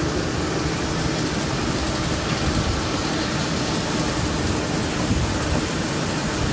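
Tulip bulb harvester running, its mesh sieve webs shaking bulbs and clay clods along with a continuous rattling patter over a steady machine hum.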